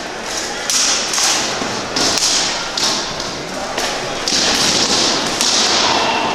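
Rattan swords striking shields and armour in SCA armoured combat: about seven hard, sharp hits over six seconds, some of them with a short trailing ring.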